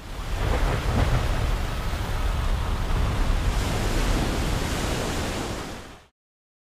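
A dense, steady rushing noise over a heavy low rumble, like surf or strong wind, rising over the first second and cutting off abruptly about six seconds in.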